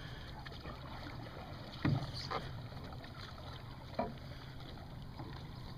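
Steady low wind rumble on the microphone over the water, broken by a few sharp knocks about two seconds in and again at four seconds, from outrigger canoe paddles striking the hulls or the water.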